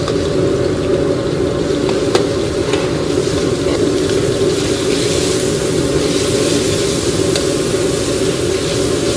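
Food frying and sizzling steadily over a constant kitchen hum, with a few sharp utensil clicks.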